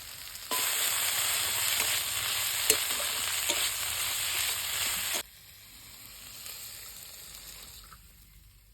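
Banana blossom curry sizzling in a pan as it is stirred, with a few sharp clicks of the spoon against the pan. The loud sizzle starts about half a second in, cuts off suddenly about five seconds in, and leaves a quieter sizzle that fades away.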